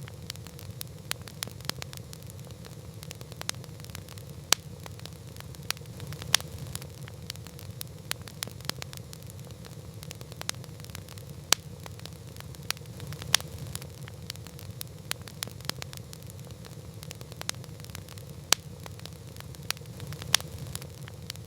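Wood campfire crackling: many sharp pops at irregular intervals, with a handful of louder snaps, over a steady low rumble.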